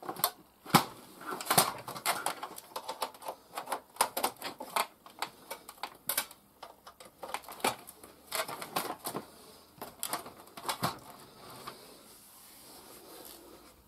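Irregular plastic clicks and clatter as the parts of an opened Amiga 500 are handled and fitted together: the casing, the drive, the cable connectors and the keyboard. The clicks come thick and fast, then die away about two seconds before the end.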